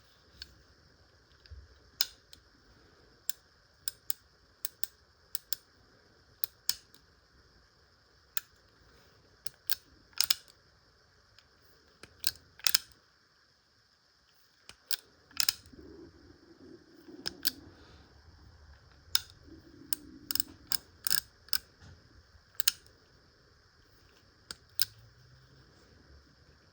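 Sharp mechanical clicks from a Hopkins & Allen XL No. 3 .32 spur-trigger revolver's action being worked by hand, single and in quick pairs at irregular intervals.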